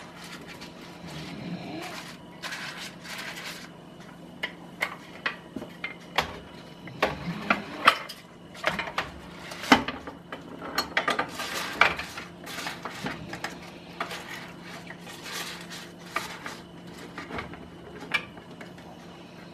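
Metal pressure cooker lid and pot clinking and clattering as the lid is fitted and closed. The sound comes as a string of sharp, irregular knocks and clicks.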